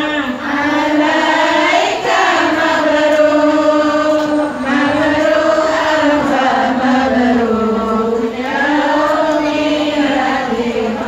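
A group of women chanting sholawat, Islamic devotional praise of the Prophet, in unison: long held notes that rise and fall, sung in phrases of about three seconds with a short breath between each.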